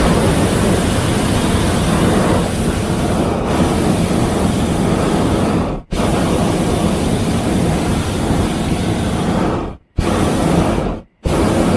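Hot air balloon's propane burner firing overhead, a loud steady rush that cuts out for a moment about six seconds in and twice more, briefly, near the end before firing again.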